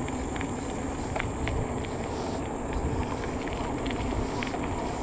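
Steady wind rush on the microphone and tyre rumble from an e-bike rolling along a paved path. Short, high insect chirps are scattered through it.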